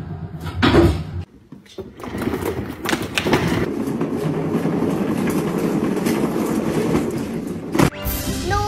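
Cat exercise wheel turning on its rollers with a steady rolling rumble and clatter as a cat runs inside it, with a loud thump just under a second in.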